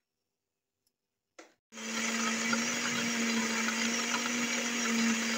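Electric blender grinding roasted sesame seeds with olive oil into a paste. After a brief click, the motor starts suddenly about a second and a half in and runs steadily with a low hum.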